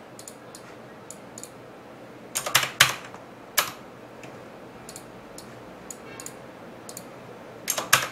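Computer keyboard and mouse clicking: scattered sharp keystrokes and clicks over a low steady hiss, with a burst of several clicks about two and a half seconds in and another near the end.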